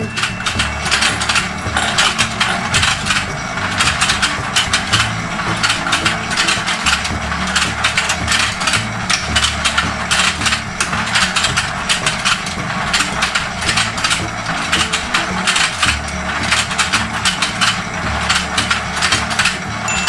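Battery-powered toy fishing game running: the rotating plastic pond and its gears give a steady, rapid plastic clicking and clatter.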